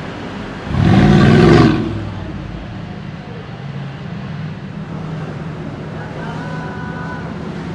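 A Mercedes-AMG G-Class (G-Wagon) engine and exhaust give one loud, short rev about a second in, lasting about a second, over steady street traffic.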